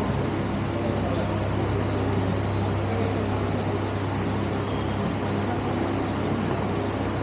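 Steady low rumble of background noise during a soccer match, with a couple of faint short squeaks.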